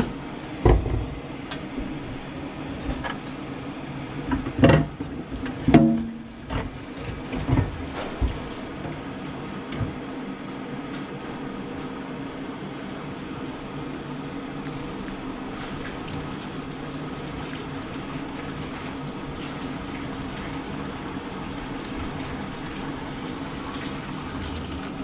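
Water running into the kitchen sink and through its drain pipes, a steady rushing, with a series of knocks and thumps in the first several seconds.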